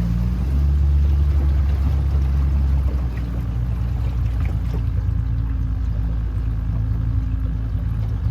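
Boat motor running steadily, easing back about three seconds in.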